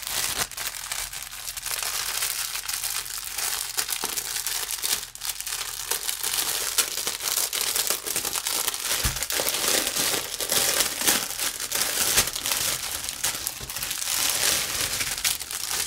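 Thin clear plastic packaging crinkling steadily as a bundle of small plastic bags of diamond painting drills is unwrapped and handled, with many small crisp crackles throughout.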